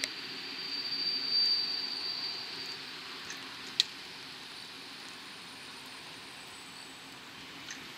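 Diesel railcar approaching in the distance: a low steady rumble under a general hiss, with a thin high-pitched squeal held for the first two to three seconds. A single sharp click sounds just before the middle.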